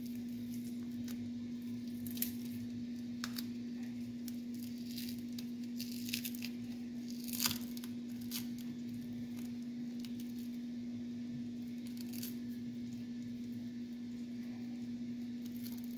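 Hands working a wiring bundle, peeling tape off the cables and pulling wires through the sleeving: scattered rustles and soft clicks, a few sharper ones, over a steady low hum.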